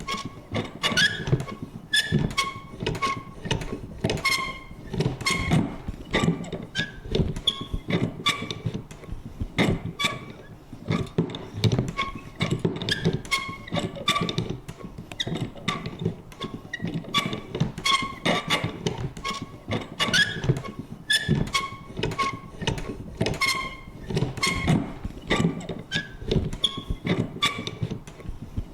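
Vintage paper punch worked over and over: its mechanism clicks and thunks several times a second, many strokes carrying a short squeaky creak.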